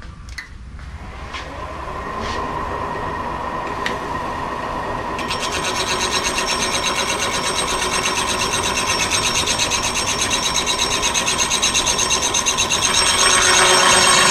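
Milling machine spindle spinning up, then a milling cutter cutting a gear tooth space through bronze braze filler on a cast-iron gear: a steady, pulsing rasp of metal cutting that gets louder near the end. The cut is clearing leftover braze from a tooth that had already been cut.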